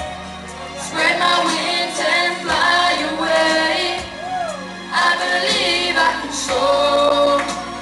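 A young boy singing into a microphone over a recorded backing track, with long held notes and sliding runs.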